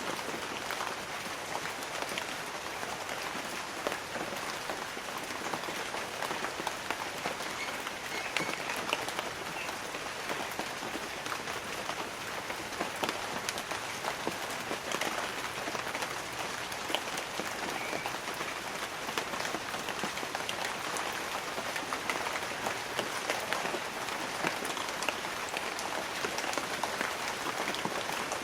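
Light rain falling on banana leaves: a steady patter of many separate drops, each a sharp tick, with no thunder.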